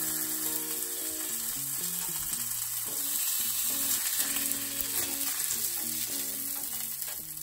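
Ground-beef patty sizzling steadily on a hot cast-iron griddle, with a metal spatula scraping under it in the second half. Soft background music plays underneath.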